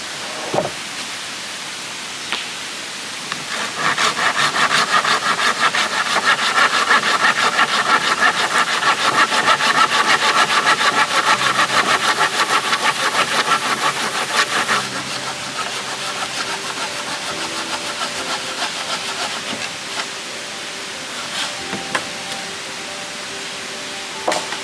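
Hand saw cutting wood with rapid back-and-forth strokes, about four a second, starting about four seconds in and stopping about fifteen seconds in. Lighter scraping and a few sharp knocks follow.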